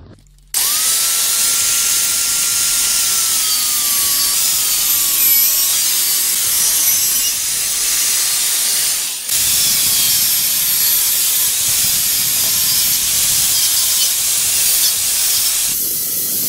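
Angle grinder with a cut-off disc cutting into the housing of a cordless impact driver: a loud, continuous grinding with a whine that wavers in pitch as the disc bites. It starts about half a second in and drops away for a moment about nine seconds in before carrying on.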